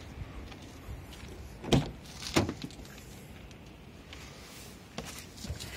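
Mitsubishi L200 pickup's door being opened: two sharp clicks of the handle and latch about two seconds in, under a second apart.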